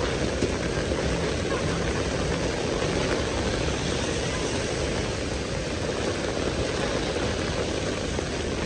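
Heavy downpour: a steady, dense hiss of rain on pavement and a wet road, with the low rumble of cars passing on the wet street underneath.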